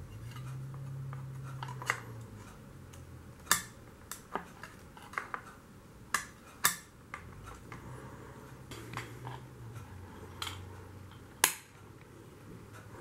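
Steel blade of a Black & Decker electric handsaw clicking and clinking against the saw's blade clamp and plastic housing as it is handled: about ten irregular sharp clicks, a few of them louder, over a faint low hum.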